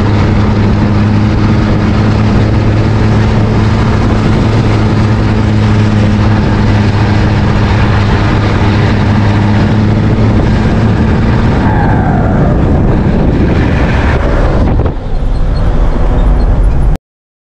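Turbocharged six-cylinder diesel of a Mercedes-Benz 1113 truck running steadily under way through a straight-through exhaust. About twelve seconds in the engine note falls away as the throttle is lifted, and after a brief break a louder, lower rumble cuts off abruptly near the end.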